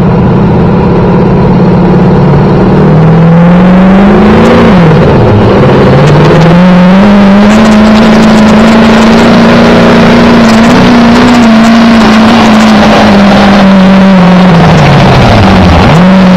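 Diesel Ford Super Duty pickup at full throttle pulling a weight-transfer sled. Its engine revs climb, dip sharply once about five seconds in, then climb back and hold high and steady for about nine seconds before falling off near the end.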